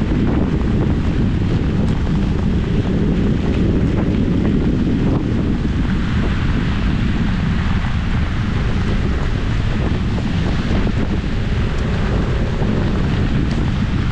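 Wind buffeting the microphone of a moving scooter in heavy rain: a loud, steady low rumble, with a hiss of rain and wet road that grows stronger about halfway through.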